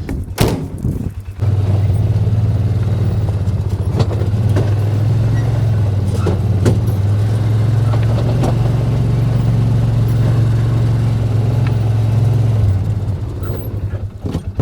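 A vehicle's engine running steadily as it travels. It is a low, even drone that comes up about a second and a half in and drops away near the end, with occasional knocks and rattles over it.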